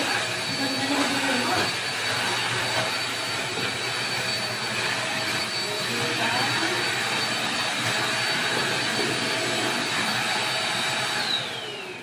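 Deerma corded stick vacuum cleaner running steadily: a loud whir with a high whine over it. About eleven seconds in it is switched off, and the whine falls in pitch as the motor winds down.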